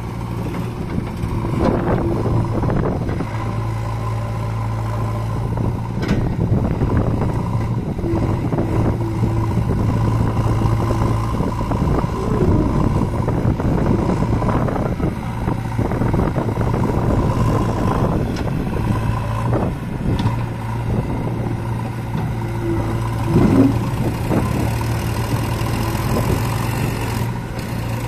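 Diesel engines of a JCB backhoe loader and a farm tractor running steadily under load as the backhoe's bucket pushes a loaded tractor-trolley through soft mud.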